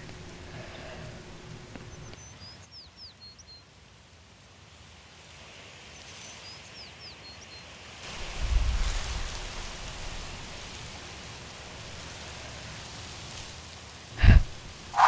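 Foley sound track of a steady outdoor ambience with a few short bird chirps. A low rumbling swell comes about eight seconds in, and a single sharp knock near the end.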